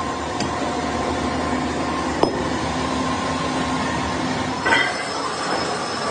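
Steady machine-shop din of running machinery with a few held tones, broken by a sharp metallic click about two seconds in and a clank of metal with brief ringing near the five-second mark.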